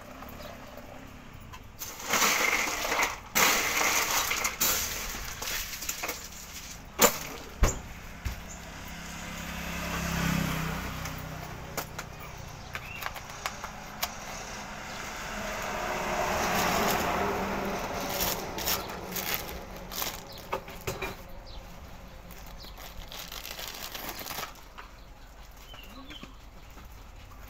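Plastic drink cups and lids being handled, with scattered sharp clicks and bursts of clatter. Two longer swells of noise come around ten and seventeen seconds in, the first with a low hum under it.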